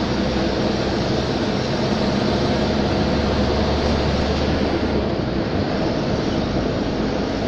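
Steady engine and tyre noise of a vehicle driving along a highway at speed, with a deeper low hum for a couple of seconds in the middle.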